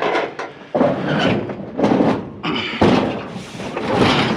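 Handling noises from a salvaged appliance being pulled and shifted: scraping, rustling and knocks in several short irregular bursts, one starting sharply near the three-second mark.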